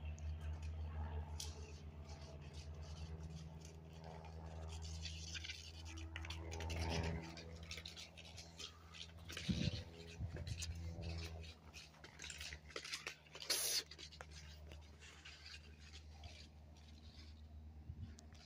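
Scratching and rubbing of handling noise over a steady low hum, with scattered clicks and one sharp, high click about two-thirds of the way through.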